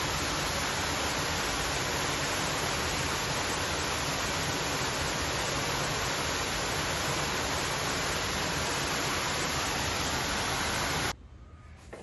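Waterfall: a steady rushing roar of falling water, which cuts off abruptly near the end, leaving a much quieter background.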